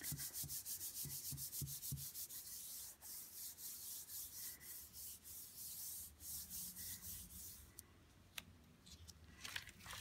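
Palms rubbing in quick back-and-forth strokes over the back of a sheet of paper laid face down on wet acrylic paint, pressing it down to pull a monoprint. The rubbing dies away about three quarters of the way through, and a paper rustle comes near the end as the sheet is peeled off the paint.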